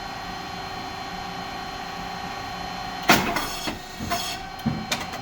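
SYP8080(S2) puffed rice cake machine running with a steady hum and a high whine. About three seconds in comes a sharp pop and short hiss as the heated mould opens and the cake puffs, followed by a few clicks of the mechanism.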